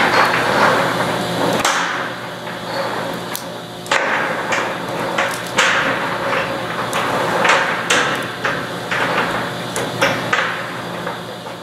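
Irregular metallic clanking from inside a rotary kiln drum, the interwoven kiln chains lining it knocking as the drum turns, over a steady machinery hum.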